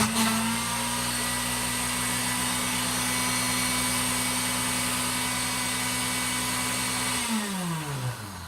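Electric kitchen blender motor running steadily with an apple in the jar, then switched off about seven seconds in, its pitch falling as the motor spins down.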